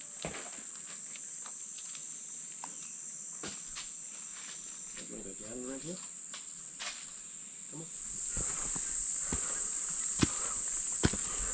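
A steady, high-pitched insect drone that gets louder about eight seconds in, with scattered footsteps on the walking track.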